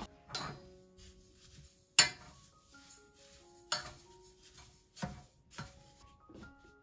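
A wooden spoon stirring sugar into lilac petals in a stainless steel saucepan, knocking against the pan about five times, the loudest knock about two seconds in. Soft piano music plays underneath.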